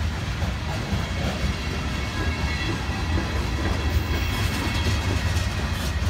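Freight train cars rolling past close by: a steady rumble of steel wheels on the rails.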